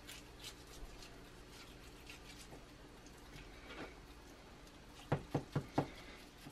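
Knife working through a ribeye roast on a cutting board: faint scraping and soft clicks, then four quick knocks of the blade on the board near the end.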